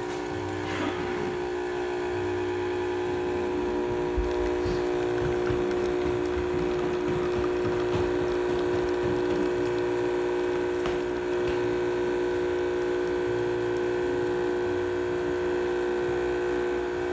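DeLonghi Magnifica espresso machine brewing a test shot: its pump runs with a steady hum and an uneven low throb underneath.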